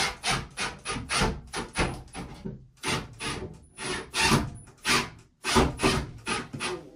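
Power drill driving a screw through a pocket hole in a wooden shelf into the wall, running in short rasping pulses about four times a second, with a couple of brief breaks.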